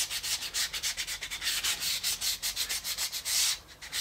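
Hand sanding with a folded sheet of sandpaper, lightly rounding over the corners of a small wooden model piece: quick back-and-forth scratchy strokes, several a second, stopping near the end.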